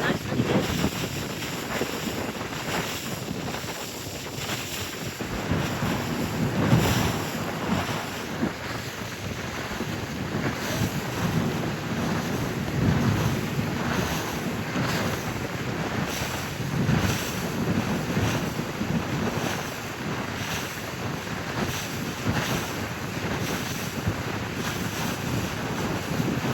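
Wind rushing over the microphone aboard a moving boat, with the rush of water past the hull, coming in irregular gusty surges.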